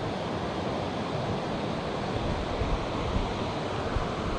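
Steady rush of river water running over stones.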